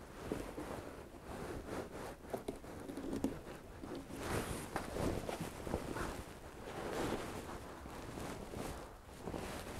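Handling noise as hands work at a small window frame: jacket fabric rustling, with light taps and scrapes.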